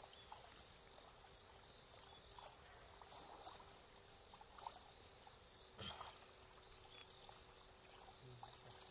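Near silence: faint outdoor background hiss with a thin steady hum, and a soft knock about six seconds in.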